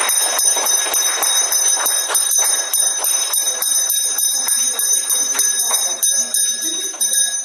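A school handbell being shaken by hand, ringing continuously with rapid strokes, about five a second.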